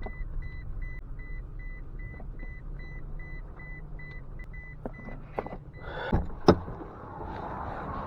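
Pickup truck's warning chime beeping rapidly, about three times a second, over the low rumble of the idling truck. The chime stops about six seconds in and is followed by a couple of sharp knocks.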